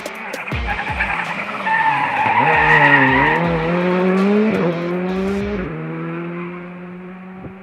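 Rally car's engine revving hard as it comes past. It is loudest about three seconds in. Twice near the end the pitch drops sharply and climbs again as it shifts up, and the sound fades as it pulls away.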